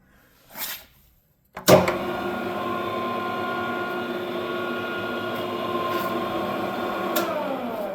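A Takisawa Max 800 Deluxe gear-head lathe starting with a sudden clunk about two seconds in. Its 5 hp three-phase motor and headstock gears then run steadily with a gear whine at the lowest spindle speed, 83 RPM. Near the end there is a click, and the lathe is switched off and winds down, falling in pitch.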